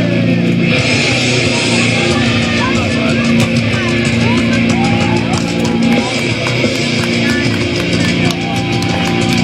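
Loud rock music with guitar and a steady drum beat, played as a wrestler's entrance music.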